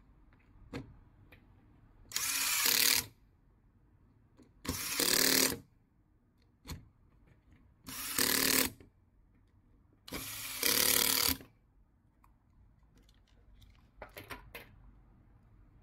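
Power drill driving screws into a plastic RC car chassis, running in four short bursts of about a second each. A few light clicks near the end.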